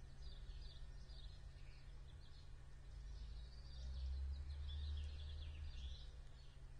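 Faint, high twittering chirps of small birds, busiest in the middle of the stretch, over a low steady rumble that swells about four seconds in.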